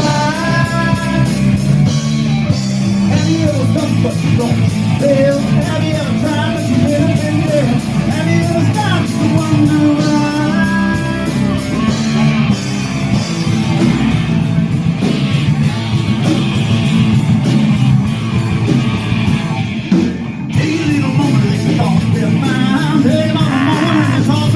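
Rock band playing live and loud: electric guitar, bass and drums on a steady beat, with a singer, and a brief drop about 20 seconds in.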